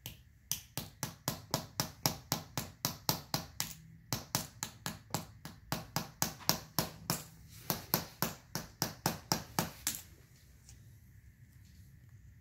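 Small mallet tapping the end of a chisel stuck into a soaked clay block, chipping it away to dig out a buried gem: quick, even knocks, about five a second, with two brief pauses, stopping about ten seconds in.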